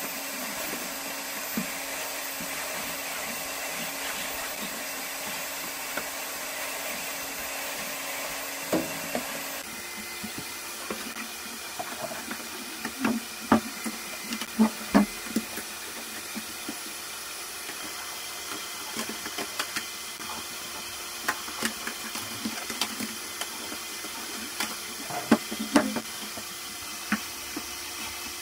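A steady mechanical hum that changes pitch abruptly about ten seconds in, with scattered light knocks and clicks over it in the second half.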